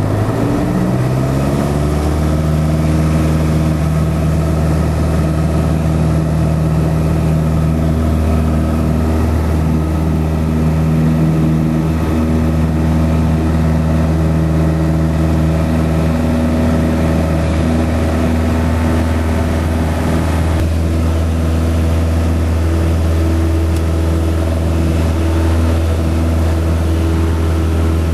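Light aircraft's piston engine and propeller heard from inside the cabin, rising in pitch over the first couple of seconds as the throttle is opened to full takeoff power, then running steadily at high power through the takeoff roll and climb-out.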